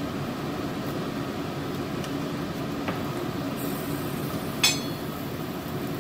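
Seafood paella broth simmering in a wide paella pan on a gas stove, a steady bubbling hiss. A single sharp clink sounds about four and a half seconds in.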